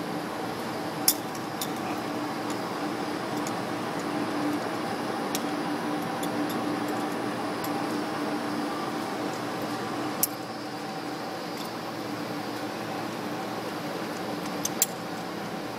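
Clicks of rope-access climbing gear as a worker ascends a rope in a bosun's chair: three sharp clicks, about a second in, near the middle and near the end, over a steady low hum.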